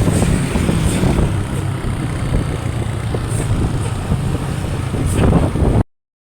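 Tour bus engine running close by amid traffic noise, cutting off suddenly near the end.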